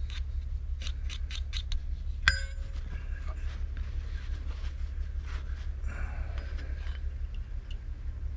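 Small brush and metal AR-15 parts being worked by hand while anti-seize is applied to the upper receiver's threads: a quick run of light ticks, one sharp metallic clink that rings briefly about two seconds in, then soft scraping and handling noise. A steady low hum runs underneath.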